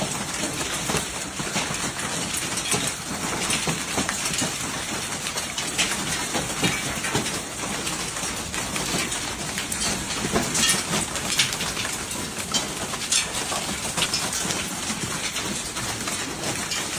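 Hail and heavy rain pelting down: a steady hiss, with sharp hits of hailstones striking hard surfaces scattered throughout.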